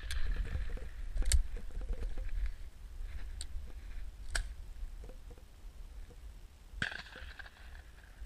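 Distant shotgun shots from other guns on a driven game shoot, three or four sharp reports a few seconds apart, the loudest about a second in, over a low wind rumble on the microphone.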